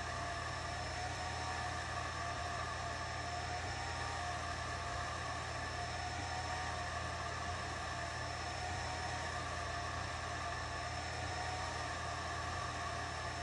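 Atomstack A10 Pro 50 W diode laser engraver running a raster engraving: a steady whir of fans with several whining tones, some wavering slowly in pitch as the head sweeps back and forth.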